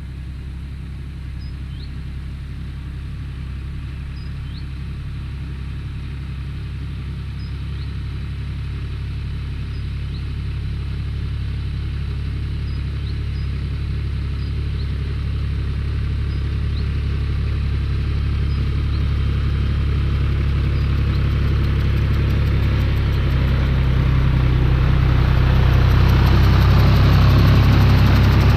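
Engine of an older John Deere tractor running steadily as it drives toward the microphone pulling a mounted fertiliser spreader, growing louder throughout. As it comes close in the last few seconds, a wider rush of noise from the spreader at work joins the engine.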